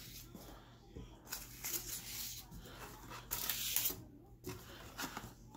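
Faint, irregular rustling and crinkling of clear plastic packing and a cardboard baseball box being handled, with small clicks now and then. A low steady hum runs underneath.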